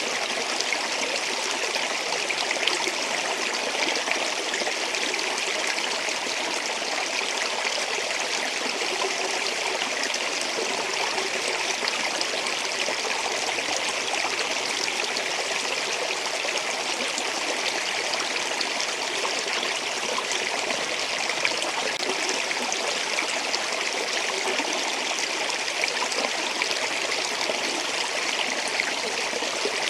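Water flowing steadily in a stream, a constant splashing rush with no breaks.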